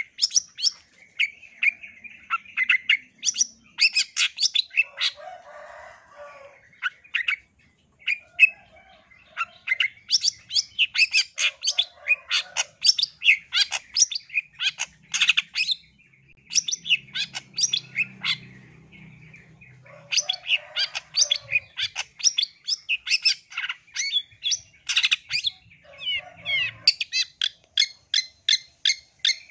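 Long-tailed shrike singing: fast runs of sharp, high chattering notes in several bursts with short pauses between them, mixed here and there with lower, harsher notes.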